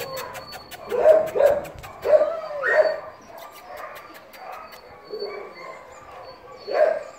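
Dog whining and yipping at cats behind a wire pen: a string of short cries that rise and arch, several close together in the first three seconds, quieter in the middle, then again near the end.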